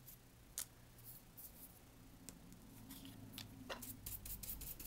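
Faint, scattered clicks and taps of card stock being handled on a cutting mat. About four seconds in, a run of quick rubbing strokes starts on the paper panel: an ink smudge being buffed out.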